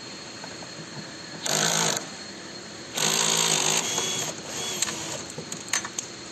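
Cordless drill driving the screw that fixes a wheel to a reformer's aluminium frame. It runs in two short bursts about a second apart, the second a little longer, followed by a few light clicks near the end.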